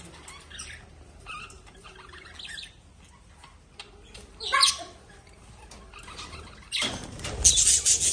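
Pet lovebirds chirping in short, shrill calls, with a louder call about halfway through and a loud run of rapid repeated chirps near the end.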